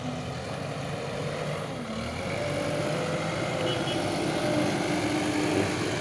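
Engine of a JCB earth-moving machine running, getting somewhat louder about two seconds in, with a few held tones that shift in pitch over the rumble.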